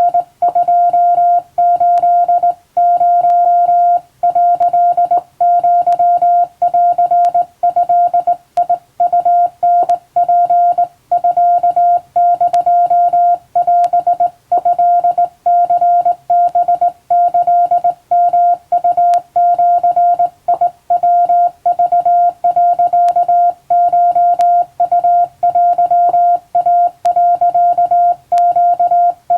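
Hand-keyed Japanese (wabun) Morse code: a single steady tone of about 700 Hz keyed on and off in short and long elements with irregular gaps between characters.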